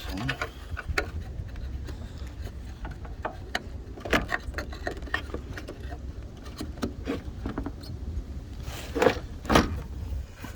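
Scattered light clicks and taps of small plastic and metal parts being handled, as the pieces that hold a car's headlight and turn-signal lamp in place are fitted back. Two louder knocks come near the end, over a steady low rumble.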